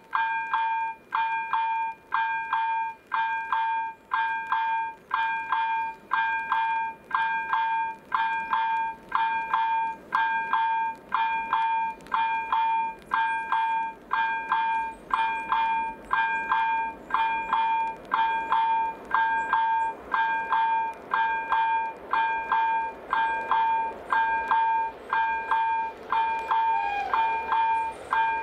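Level-crossing electronic warning bell ringing continuously: quick, bright dings repeating in a steady rhythm that pulses about once a second, sounding while the crossing's red light flashes to warn of an approaching train.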